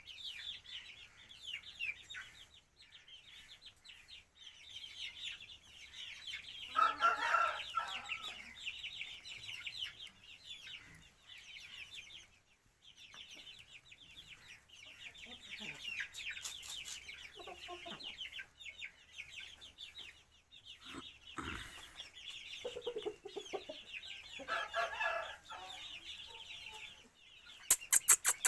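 Aseel chickens clucking, with two louder calls about seven seconds in and again near the end, over continual high-pitched chirping. A single knock about two-thirds through, and a rapid run of loud clicks at the very end.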